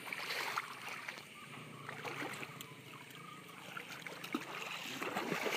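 Quiet river-edge ambience: a low, even wash of water sound with a few faint ticks.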